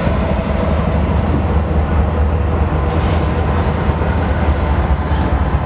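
Freight train rolling past, a loud, steady rumble of its cars' wheels on the rails.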